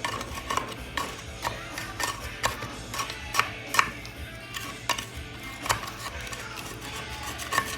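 Hand scraper scraping caked dirt off the cover of a vintage Briggs & Stratton engine, short irregular strokes about twice a second, over a steady low hum.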